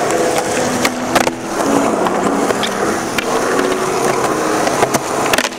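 Skateboard wheels rolling steadily over smooth concrete, with a sharp clack of the board about a second in and another near the end.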